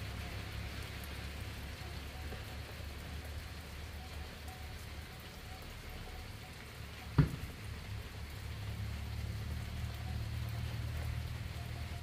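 Steady rain falling, an even hiss with a low rumble underneath, broken by a single sharp knock just past halfway.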